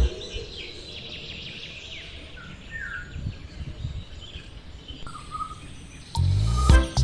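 Outdoor ambience of scattered short bird chirps over a steady background hiss; music with a beat starts near the end.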